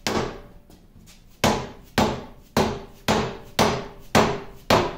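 A hammer striking the lathe's cast-iron apron and carriage to knock loose an assembly that has likely never been apart. One blow, a pause of over a second, then seven blows about two a second, each with a short metallic ring.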